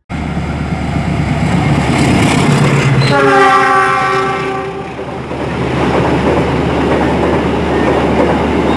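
A diesel locomotive hauling a passenger train passes close below, with the engine running as a low hum. About three seconds in the locomotive sounds its horn, a chord of several tones held for about two seconds and sagging slightly in pitch. After that the passenger coaches rumble and clatter steadily over the rails.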